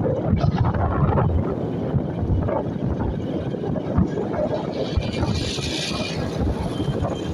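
Wind buffeting the microphone over the rumble of a vehicle moving along the road, with a brief rise in hiss about five seconds in.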